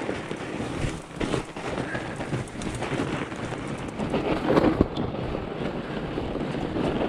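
Fat bike's wide tyres rolling and crunching over snow, with wind rumbling on the microphone and knocks from the bike jolting over bumps, loudest a little past the middle.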